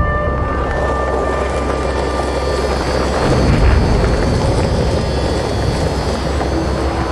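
Engine-like rumble of war machines, a heavy, dense mechanical sound effect from the soundtrack of a projection-mapping show, swelling a few seconds in. A held tone from the preceding music fades out in the first couple of seconds.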